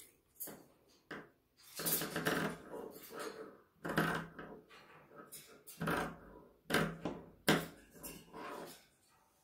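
Fabric scissors trimming the seam allowance of a sewn cotton panel: a string of irregular snips with quiet gaps between them, along with cloth rustling as the fabric is handled.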